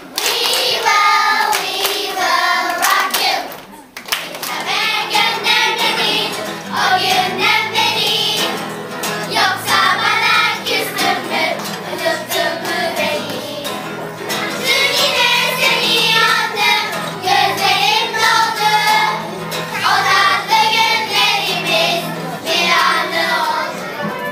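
Children's choir singing. After a short break about four seconds in, a new song begins with acoustic guitar accompaniment.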